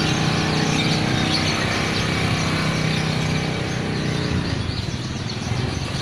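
Many small caged birds chirping over the steady hum of an engine running close by. The engine hum stops about four and a half seconds in, and the chirping goes on.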